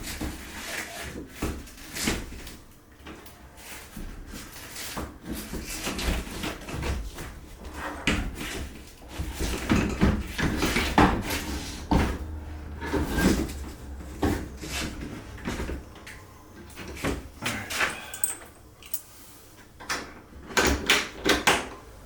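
Irregular knocks and clunks of a heavy solid oak door being handled and fitted back onto its hinges in the frame, wood and metal hinge parts bumping together. The knocking is busiest about halfway through and again near the end.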